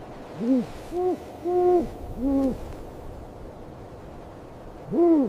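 Snowy owl hooting: four short, arched hoots in the first two and a half seconds, then one more near the end.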